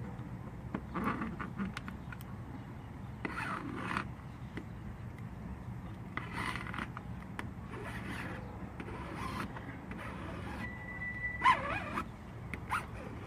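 Plastic squeegee scraping in short strokes over a vinyl decal and its transfer tape on a car body, pressing the decal down, with a brief squeak just before one louder stroke near the end.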